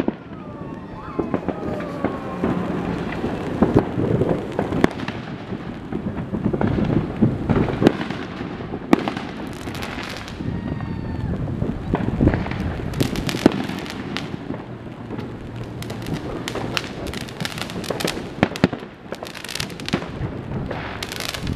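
Neighbourhood consumer fireworks going off one after another: irregular bangs and sharp cracks at varying distances, with a few brief whistling glides among them.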